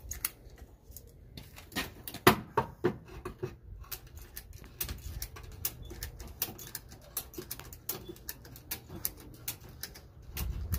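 Ratchet strap being cranked tight, its ratchet clicking in short irregular runs with a few sharper knocks, the loudest about two seconds in, as it pulls the rear axle sideways to line up the track bar.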